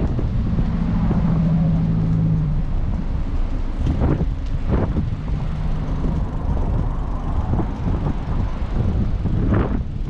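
Wind rushing over the microphone while cycling along a seaside road, with a steady low vehicle hum for the first two seconds or so and again around the middle.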